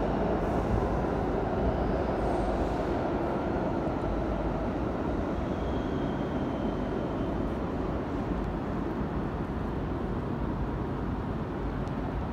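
Steady low rumble of a subway train running in the station below, slowly fading, with a faint high squeal about halfway through.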